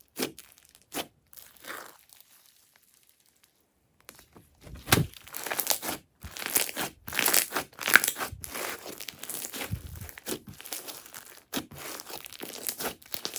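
Crunchy slime being squeezed and kneaded by hand, giving dense runs of crackles and crunches. It falls quiet for about two seconds shortly after the start, then the crackling picks up again and carries on.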